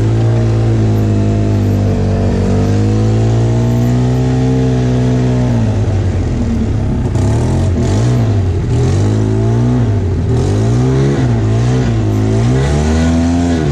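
Polaris Sportsman 800 Big Boss 6x6 ATV's twin-cylinder engine running at a steady pitch, then revving up and down over and over through the second half. It has a large exhaust leak, which the owner says makes it sound horrible.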